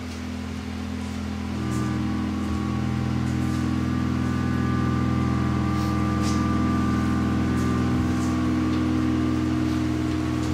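Droning music: several low held tones, joined by higher held tones that make it swell about two seconds in. Faint scattered taps run through it.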